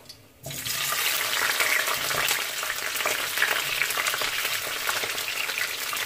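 Sliced bell peppers and onions dropped into hot oil in a frying pan, starting to sizzle suddenly about half a second in and sizzling steadily with fine crackling after that.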